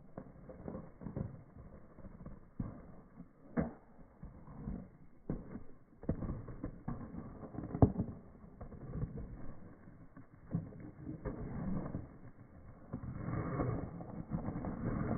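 Ice rink sounds: irregular knocks and thuds over a noisy background, the sharpest knock about eight seconds in, with a longer scraping swell near the end.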